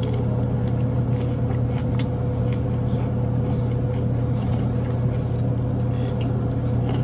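Steady low hum of a kitchen appliance motor with a thin whine above it, and a few light clicks.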